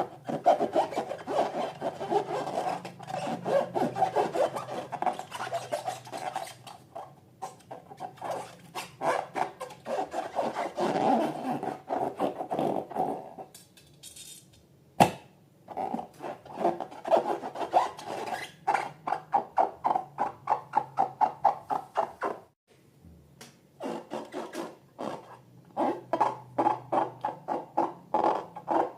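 Slime being worked in quick, rhythmic strokes, about three a second, giving a wet rubbing, rasping sound. It pauses twice, and there is a single sharp click partway through.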